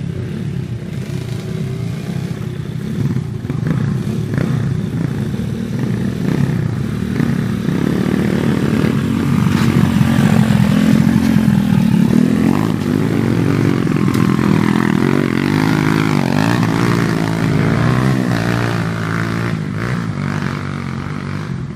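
Dirt bike engines revving hard on a steep hill climb, the pitch rising and falling as the throttle is worked. The sound is loudest about halfway through.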